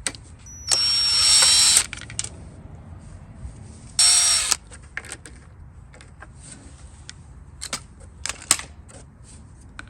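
Power driver running in two short bursts, the first about a second long and the second about half a second, undoing the nut on the second gear lever handle of a riding mower. A few light metal clicks and knocks follow as the parts are handled.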